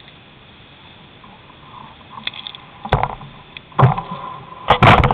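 Handling noise from a handheld camera. A faint steady hiss gives way, about halfway in, to clicks and then several loud knocks and bumps, one of them followed by a short metallic ring.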